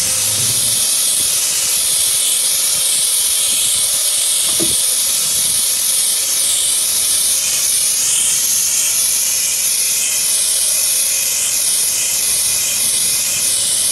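Steady, loud hiss of compressed air escaping from a self-contained breathing apparatus's hose, held to the face of an asphyxiated cat to give it air during resuscitation; the hiss wavers slightly in a regular rhythm.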